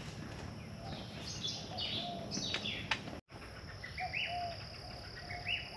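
Wild birds chirping and calling with short repeated notes over a steady high insect drone, in tropical woodland by a billabong. The sound drops out completely for a moment about three seconds in.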